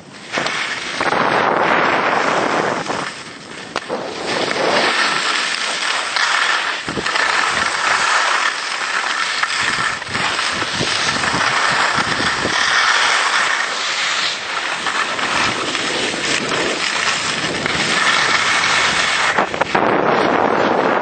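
Skis hissing and scraping over packed snow on a fast descent, with wind buffeting the microphone. The rushing noise rises and falls as the skier turns, easing briefly about three seconds in.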